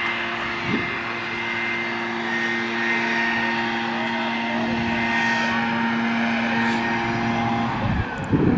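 A motor running with a steady, unchanging hum that cuts off near the end.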